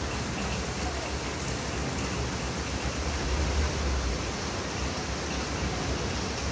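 Steady rushing hiss of heavy rain and fast-flowing floodwater from a river in spate, with a low rumble underneath.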